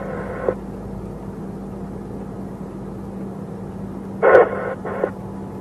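Steady rumble and hum of a moving patrol car heard from inside the cabin. Near the end come two short crackles from the police radio.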